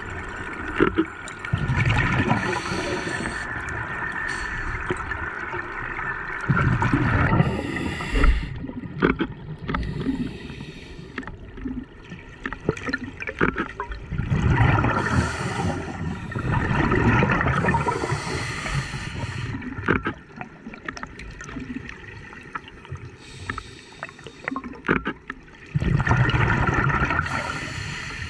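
Scuba diver breathing through a regulator underwater: exhaled bubbles gurgle out in loud surges every few seconds over a steady muffled rush of water.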